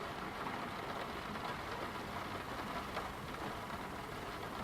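Steady background noise, an even hiss with no distinct sounds in it.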